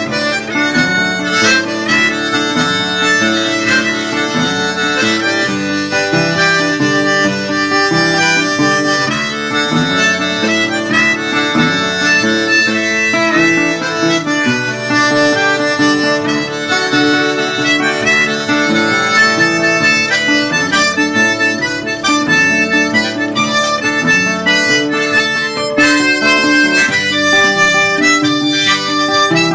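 Diatonic harmonica playing a Cajun-style instrumental break, its chords and melody mimicking a Cajun accordion, over a steady acoustic guitar backing with alternating bass notes.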